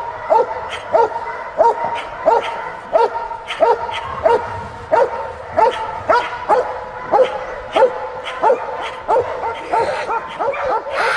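Dutch Shepherd barking over and over in a steady rhythm, about three barks every two seconds.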